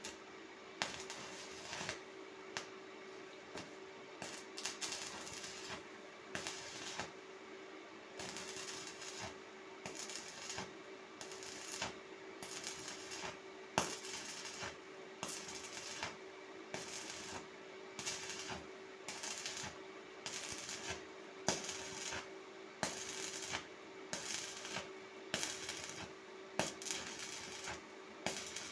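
Welding in short, irregular bursts of crackling arc noise, each lasting under a second to about a second, with sharp clicks between them. A faint steady hum runs underneath.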